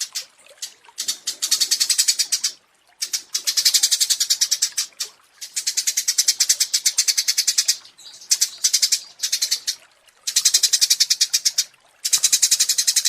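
Small songbird's rapid, high chattering trill, repeated in bursts of one to two seconds with short pauses between.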